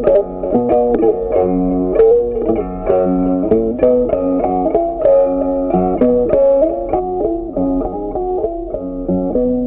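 Background music: a light tune of picked guitar notes playing steadily.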